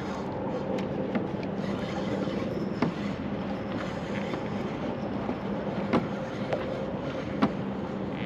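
Spinning reel being wound in against a hooked fish, with a steady whirr under water lapping at a kayak hull. A few sharp knocks are scattered through it.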